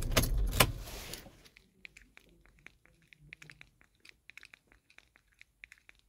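Volkswagen flip-key remotes clinking together as they are handled: a loud rustling burst with two sharp clicks in the first second or so, then scattered light metallic clicks and jingles.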